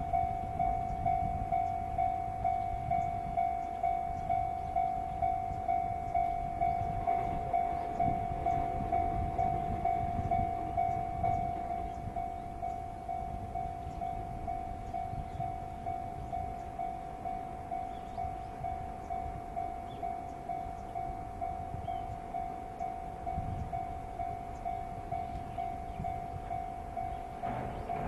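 Japanese railway level-crossing warning bell ringing: an electronic ding repeated about three times every two seconds, stopping near the end.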